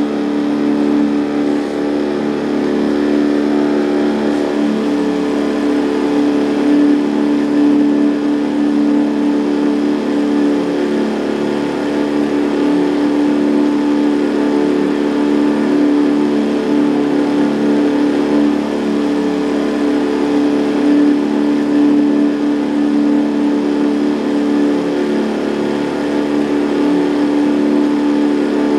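A boat's outboard motor running steadily at a constant speed, giving an even hum that neither rises nor falls.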